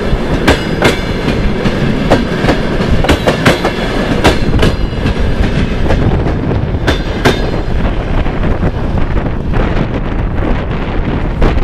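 Passenger coaches rolling past close by: wheels clacking over rail joints, often in quick pairs, over a steady rumble of running gear. The clacks thin out after about five seconds as the tail of the train passes and draws away, and the sound grows duller.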